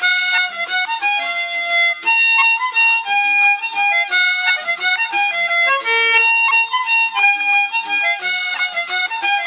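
Fiddle playing a waltz melody, steady and continuous, with little bass beneath it.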